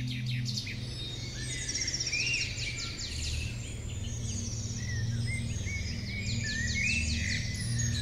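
Several birds chirping and trilling in woodland, many short overlapping calls, over a low steady hum.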